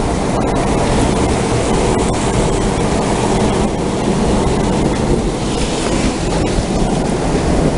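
Steady, loud rushing noise of a thunderstorm's rain and wind.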